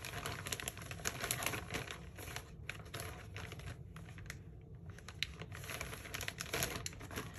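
Thin plastic packaging bags crinkling and rustling in irregular crackles as clothing is pushed back into one and the bags are handled, with a brief lull a little past the middle.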